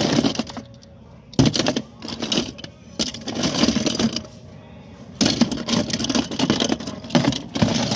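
Die-cast toy cars, Hot Wheels among them, clattering against each other and a plastic bin as a hand rummages through them. The rummaging comes in about five spells of dense metallic clinking, each about a second long.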